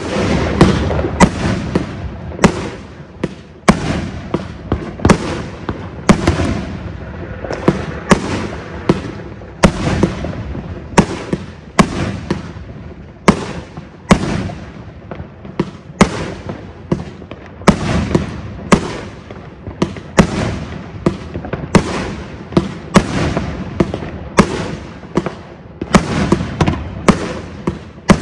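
A 36-shot consumer firework cake firing in a rapid series of sharp bangs, roughly one every half-second to second. Each bang has a short decaying tail as the shells launch and burst into stars.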